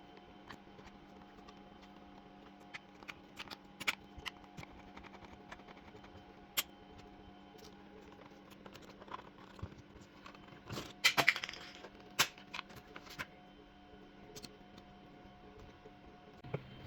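Light clicks and taps of small hard objects being handled, scattered irregularly with a quick cluster about eleven seconds in, over a faint steady hum.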